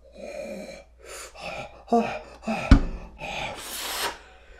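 A man gasping and huffing through an open mouth with short grunts, taking in a mouthful of steaming-hot noodles. A sharp knock comes a little past halfway, and a long blow of breath near the end.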